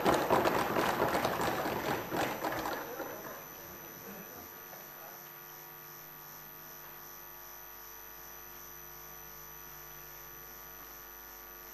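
Applause from the assembly chamber for the first three seconds, fading out. After that a faint, steady electrical hum.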